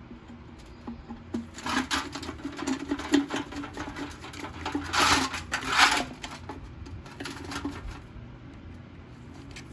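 Screwdriver backing small Phillips screws out of a Briggs & Stratton Classic lawnmower carburetor, with a run of small clicks and scrapes of tool and metal parts, loudest about five to six seconds in.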